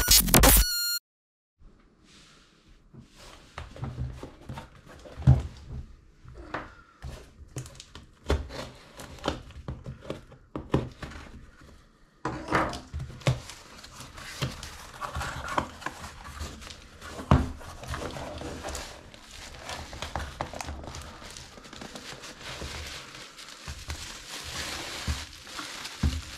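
The tail of an electronic music sting lasts about a second. Then a cardboard shipping box is handled and opened with scattered thumps, scrapes and rustles of its flaps. From about halfway on, bubble wrap crinkles steadily as the packed item is pulled out.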